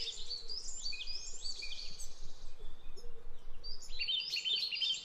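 Many small birds chirping at once, with short high calls overlapping one another. The calling thins out a little past the middle and picks up again near the end.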